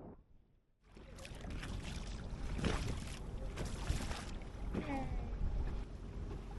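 Boat under way: water and wind noise over a steady low rumble, starting suddenly about a second in. A brief falling voice-like call comes near the five-second mark.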